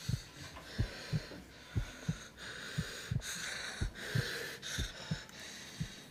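Heartbeat sound effect: low double beats repeating about once a second, under a breathy hiss that swells and breaks off every half second or so.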